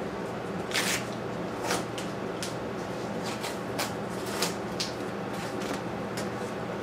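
About a dozen short, irregular scrapes and rustles of hand work at a workbench, the first, about a second in, the loudest, over a steady low hum.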